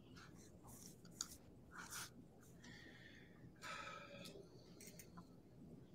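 Near silence: room tone over an open video call, with a few faint clicks and rustles.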